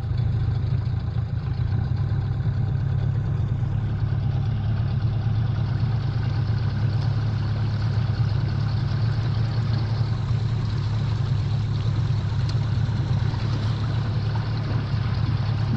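Outboard motor on a small aluminium boat running steadily, a low, even drone.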